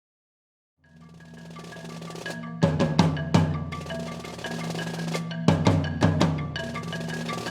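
Music: after about a second of silence, a low sustained drone fades in, joined by percussion strikes that grow louder and more frequent.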